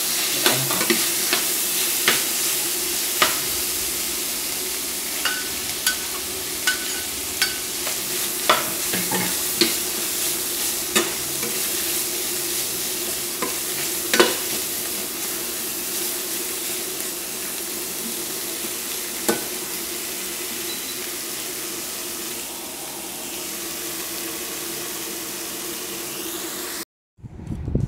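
Chicken intestines stir-frying in a metal pan: a steady sizzle with irregular clacks and scrapes of the spatula against the pan, frequent at first and thinning out in the second half. The sound cuts off suddenly just before the end.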